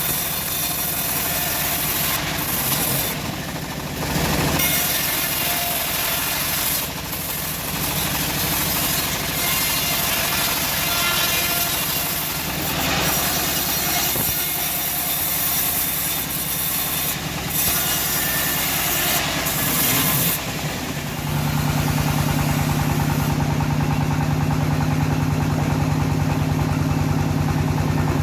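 Homemade engine-driven band sawmill running while cutting a teak log, with a noisy, uneven hiss over the engine. About 21 seconds in, the sound settles into a steady, even engine drone and the hiss fades.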